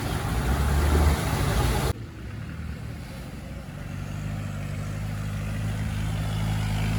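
A loud rushing noise that cuts off abruptly about two seconds in. It is followed by an off-road 4x4's engine running steadily, its pitch and loudness creeping up toward the end.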